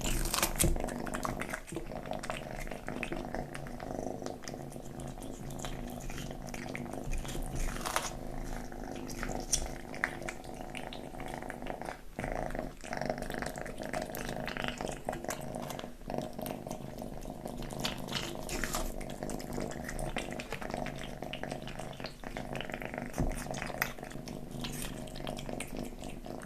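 Kitten purring and growling steadily while eating watermelon, with many short wet chewing and smacking clicks over it.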